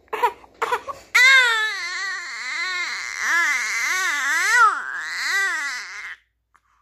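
Infant crying: a few short sobs, then one long cry starting about a second in whose pitch wavers up and down over and over, breaking off near the end.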